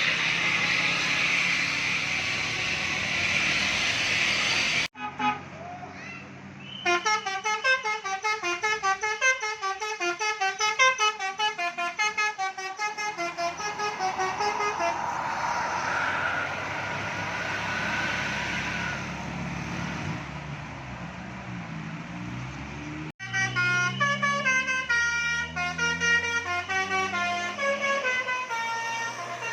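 A bus's telolet horn, the multi-tone melodic horn, playing a quick run of notes, heard twice: about seven seconds in for several seconds, and again after an abrupt cut near the end. Between them and at the start is the steady noise of passing vehicle engines and tyres.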